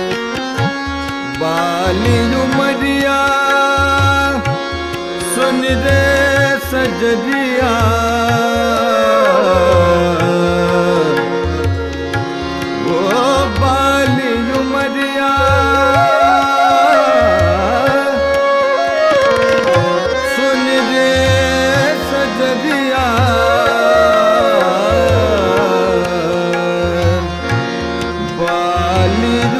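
Hindustani classical thumri performance. Tabla keeps a steady cycle of low bass strokes under a harmonium and a male voice singing long, gliding melodic phrases.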